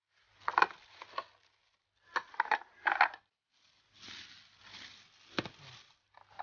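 Thin plastic carrier bag rustling and crinkling in several short bouts with sharp crackles as it is handled and rummaged through.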